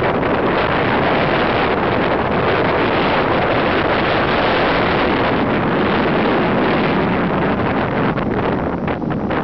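Strong storm wind buffeting the microphone, loud and steady, with surf breaking over the dike's stone-block slope; it eases slightly near the end.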